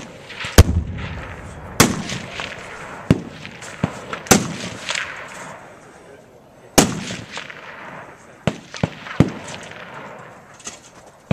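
Gunfire: about ten separate shots at uneven intervals, each trailing off in a rumbling echo, with the loudest about half a second, two seconds and seven seconds in.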